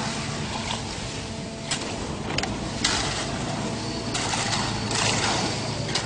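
Concrete mixer with pump running: a steady engine hum under a rushing mechanical noise, with a few sharp knocks and a louder rushing stretch about four seconds in.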